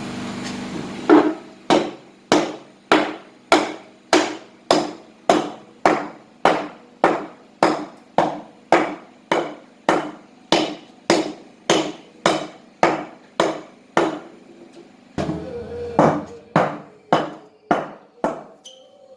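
Hammer blows knocking the bearings out of a Candy washing machine's tub: a long, even run of metallic strikes about two a second, a short pause, then a few more strikes.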